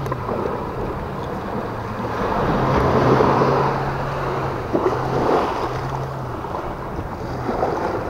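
Sea waves washing onto the beach among the rocks, swelling about two seconds in and again near the middle, with wind buffeting the microphone. A steady low hum comes and goes underneath.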